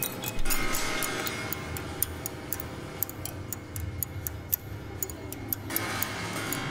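Grand piano strings played from inside the case: sustained, ringing string tones with small balls set on the strings, giving quick ticks about three times a second, and the ringing swells again near the end.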